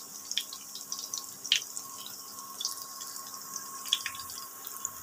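Garlic pakoras shallow-frying in hot mustard oil: a steady sizzling hiss with scattered short crackles and pops, and a faint steady tone underneath.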